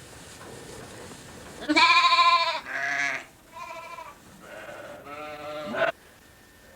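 Sheep bleating about five times in quick succession, each call wavering, the first the loudest.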